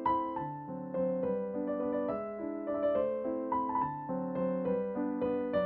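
Gentle background piano music, a slow melody over sustained chords.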